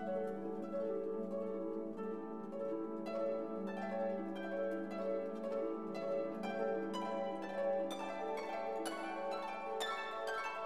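Background music: a light instrumental piece of quick plucked string notes over held tones.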